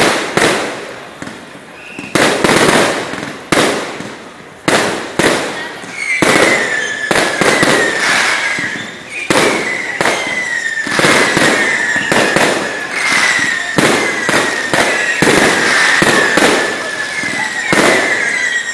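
Aerial fireworks display: a rapid run of sharp bangs from shells bursting overhead. From about six seconds in, it is joined by repeated whistling fireworks, each whistle sliding slightly down in pitch over a couple of seconds.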